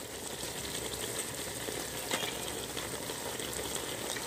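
Chicken and masala sizzling in a pot on the stove as shredded cabbage is dropped in by hand, with one light click a little over two seconds in.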